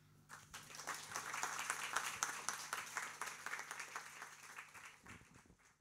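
Audience applauding at the end of a song, the clapping swelling within the first second and then fading away near the end.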